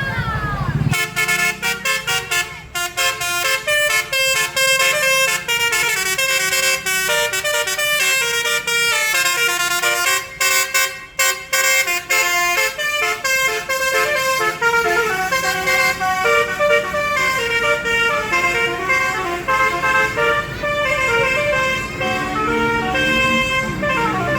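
Basuri musical bus horn playing a tune, its notes changing in quick steps, starting about a second in, with short breaks in the melody around three and eleven seconds in.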